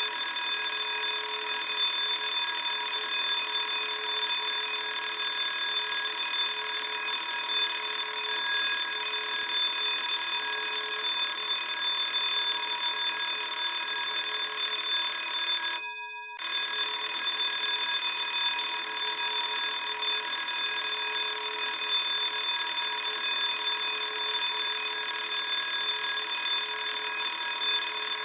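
Classic school bell ringing continuously, a bright clangorous ring of many steady tones. It cuts out for about half a second around sixteen seconds in, then rings on.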